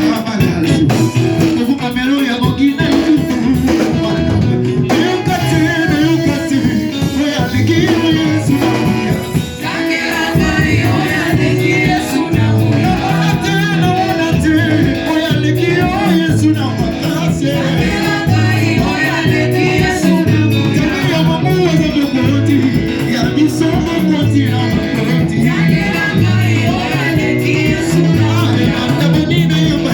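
Live church worship music: singers over guitar, bass and a steady beat.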